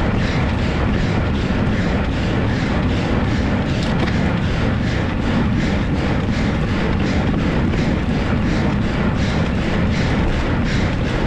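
Wind buffeting the bike-mounted camera's microphone with tyre noise on the asphalt, a steady low rumble, over the cyclist's hard, fast, rhythmic breathing while sprinting up a steep climb at full anaerobic effort.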